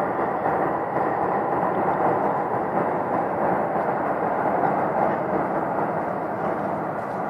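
A steady rumbling noise that holds at one level, with no clear pitch, beat or sudden sounds.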